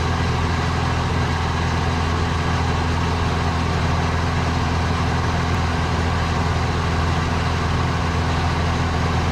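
Van's RV-9A light plane's piston engine and propeller running steadily in flight, heard inside the cockpit: an even drone at a constant pitch with a steady hiss over it.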